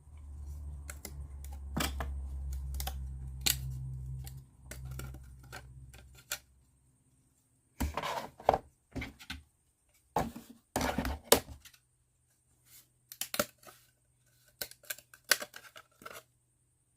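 Plywood parts of a Tiny Drive wind-up arcade game kit being handled and fitted together: scattered light clicks and taps, coming in clusters in the second half. A low steady rumble runs through the first six seconds or so.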